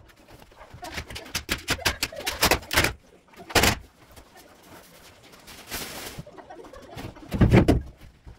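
Knocks and clatter of furniture being handled and broken up, a sharp bang midway, a short scrape, then heavy thumps near the end, with pigeons cooing.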